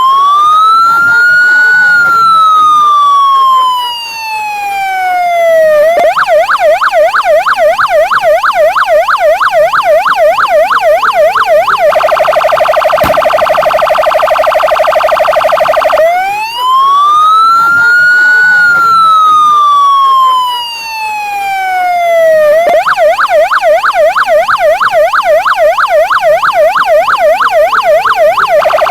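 Police patrol car electronic siren cycling through its tones: a slow wail that rises for about two seconds and falls for four, then a fast up-and-down yelp for about six seconds, then a steady tone for about four seconds. The cycle then starts again with the wail, about halfway through, followed by the yelp.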